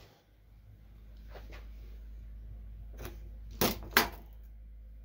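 A steel tape measure being pulled out along a foam board: a few short clicks and rattles of the blade and case, the two loudest about three and a half and four seconds in, over a steady low hum.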